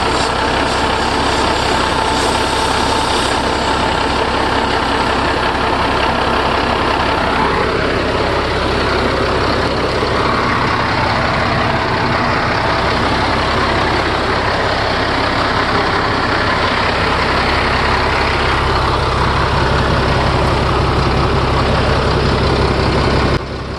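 Caterpillar 12G motor grader's diesel engine idling steadily.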